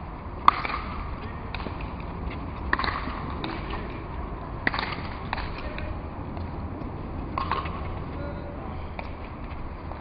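Sharp cracks of a pelota ball being struck by grosse pala paddles and hitting the fronton wall during a rally. The loudest crack comes about half a second in, and others follow roughly every two seconds.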